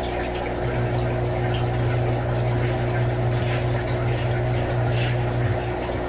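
Aquarium aeration running: air bubbling up through the water from an airline and a sponge filter, over a steady low hum from the air pump. The hum swells about half a second in and eases near the end.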